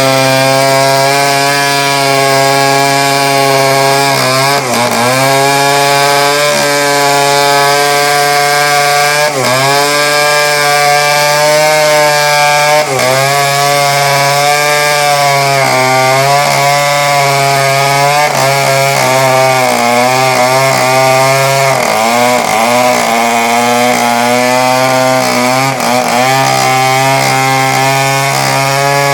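Chainsaw running steadily at high revs while cutting teak, its engine note dipping briefly and recovering about five times as the chain is loaded in the cut.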